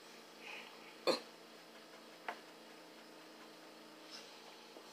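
Quiet eating noises from people at a table. Two short sharp clicks, the louder about a second in and a smaller one about two seconds in, over a low steady hum.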